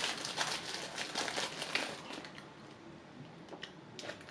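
Crinkling, crackling rustle full of small clicks, fading out about two seconds in, followed by a few faint isolated clicks.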